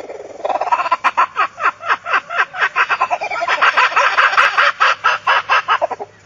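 An animal calling in a fast run of short calls, each falling in pitch, about five a second, stopping just before the end.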